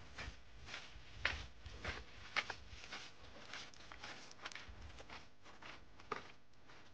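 Footsteps on a dirt lane, about two steps a second, stopping about six seconds in.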